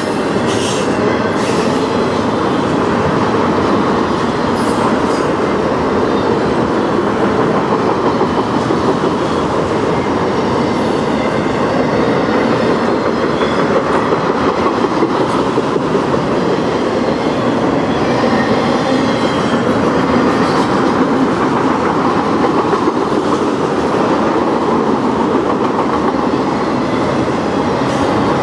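Autorack freight cars rolling past close by, a loud, steady rumble and rattle of steel wheels on the rails.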